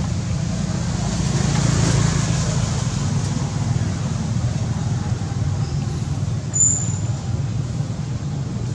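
Steady low outdoor background rumble, with a brief high squeak about six and a half seconds in.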